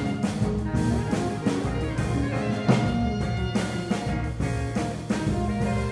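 Live ensemble music: electric guitar, electric bass, drum kit, keyboard and saxophones playing together, with sustained chords over repeated drum strikes.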